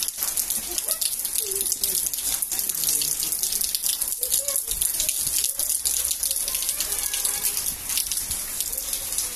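Heavy rain falling steadily: a dense, even hiss with a fine patter of drops.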